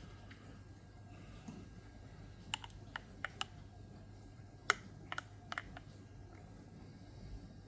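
About a dozen light, sharp clicks and taps, scattered between about two and six seconds in, the loudest one near the middle, over a faint steady low hum.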